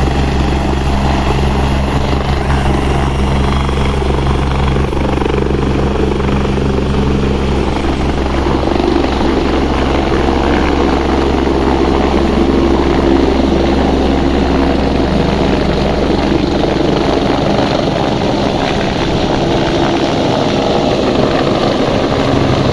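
Air ambulance helicopter running loudly and steadily, its rotor and turbine giving low steady tones and a high whine that rises slightly in pitch a few seconds in.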